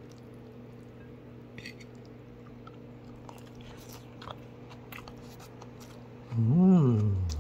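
A person eating a mouthful of nasi pecel with fried tempeh: quiet chewing with small scattered crunches and clicks over a steady low hum. Near the end comes one loud, drawn-out hummed "mmm" of enjoyment, rising then falling in pitch.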